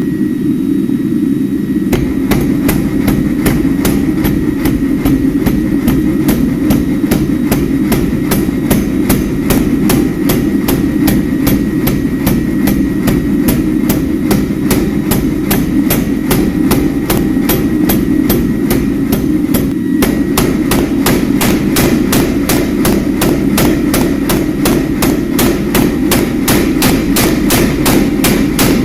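Forging hammer blows on steel, struck in an even rhythm of about three a second, with a brief break about twenty seconds in, over a steady low rushing noise.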